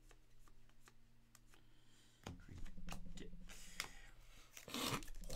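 Trading cards being handled and slid against one another, with faint ticks and slides, and a louder rustle of card and wrapper handling near the end. A low steady hum comes in about two seconds in.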